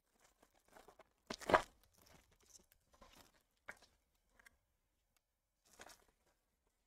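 Foil trading-card packs and cards being handled: a short, loud crinkling rip about a second and a half in, then light rustling and crinkling, and another short crinkle near the end.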